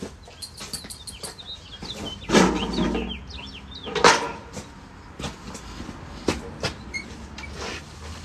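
Metal wire kennel gate and panels rattling and clanking as they are handled, with short high squeaks in the first three seconds and two heavier clatters, about two and four seconds in, amid knocks from cleaning tools.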